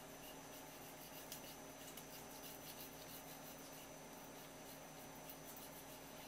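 Faint, light scraping of a kitchen knife blade over the skin of a whole striped jack as it scales the fish, over a steady faint hum.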